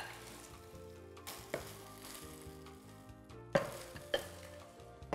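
Egg omelette mixture sizzling in a non-stick frying pan as a wooden spatula stirs and scrapes it, with a few sharp taps of the spatula against the pan.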